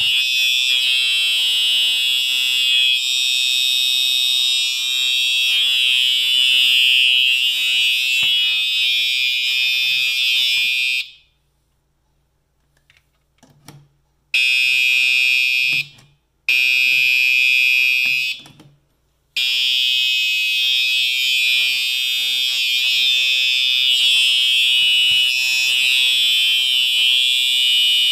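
Simplex TrueAlert fire alarm horn sounding a steady, loud, high-pitched continuous tone, run on 12 volts, which leaves it quieter than normal. It cuts out about eleven seconds in for about three seconds, then stops twice more for a moment before sounding on.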